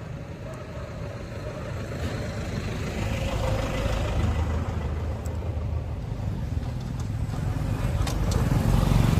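A motor vehicle's engine running, a low steady sound that grows louder toward the end.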